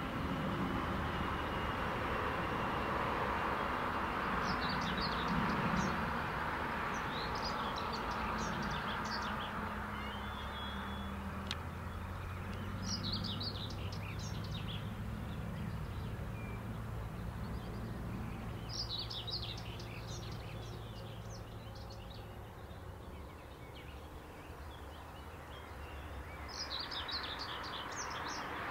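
An electric-hauled Intercity passenger train running away along the track: a steady rolling rumble with a low hum that slowly fades. A songbird sings short chirping phrases every few seconds over it.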